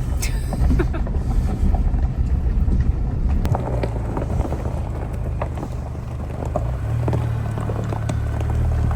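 Chevrolet Colorado pickup driving on a rough gravel road: a steady low engine and road drone with scattered clicks and knocks from the stones.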